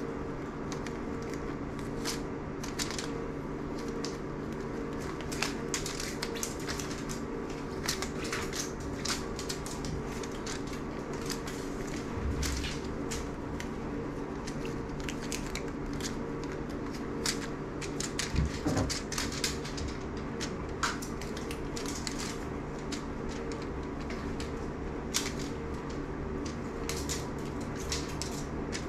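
A steady mechanical hum with many light, irregular clicks and taps scattered over it.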